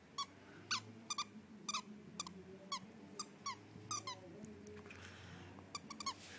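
Squeaker inside a plush dog toy being chewed by a wire-haired fox terrier puppy. It gives short, sharp squeaks at an irregular pace, about fifteen in all, each dipping slightly in pitch, with a pause of about a second and a half near the end.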